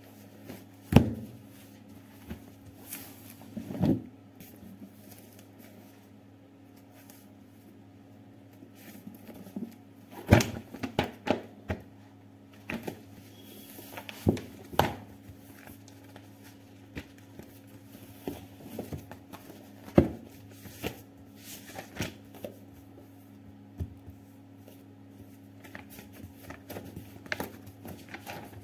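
A thick paperback textbook handled on a wooden desk: a knock as it is set down about a second in, then scattered taps, rustles and page-turning flicks as its pages are flipped, over a faint steady hum.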